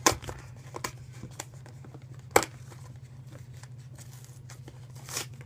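Packaging of an iPad box being handled and pried at, with a person struggling to open it: a few sharp snaps near the start, about halfway through and near the end, with faint crinkling between. A steady low hum runs underneath.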